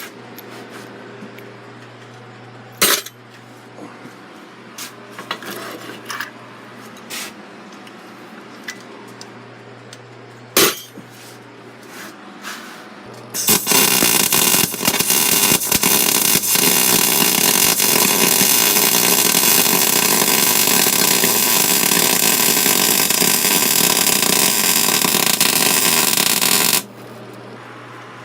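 Gas-shielded wire-feed (MIG) welder arc crackling steadily for about thirteen seconds on galvanized steel, starting about halfway through and cutting off suddenly. Before it, a few sharp metal clanks and light taps as the work is set up, over a steady low hum.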